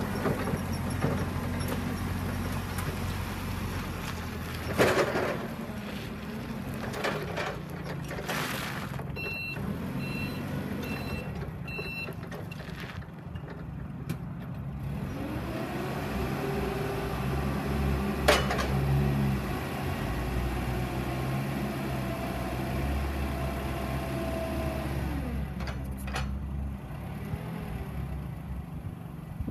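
2013 Mitsubishi FGC25N propane forklift running as it is driven, with a few reversing beeps about ten seconds in and a couple of sharp clunks. From about halfway the engine revs up under a rising whine that holds for several seconds and then falls away as the mast is raised.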